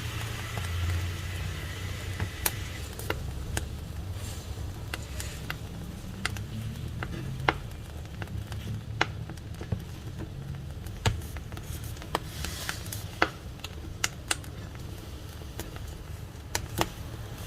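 Wood fire burning with a steady low rumble of flames and irregular sharp crackles and pops of burning wood.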